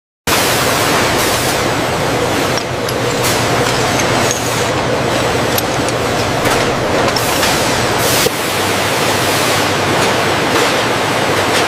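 Steady factory machinery noise with occasional faint knocks, cutting in abruptly just after the start.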